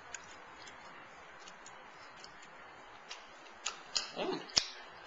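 A person eating a forkful of raw courgette noodles: faint chewing with a few soft mouth clicks, then a cluster of lip smacks and mouth clicks near the end, ending in one sharp click.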